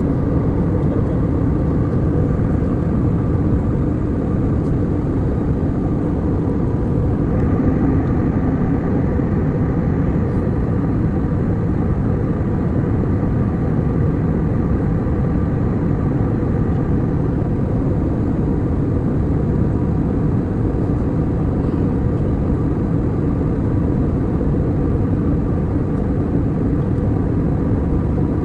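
Steady, even drone of an airliner in flight, heard from inside the passenger cabin: engine and airflow noise, with a faint steady hum on top.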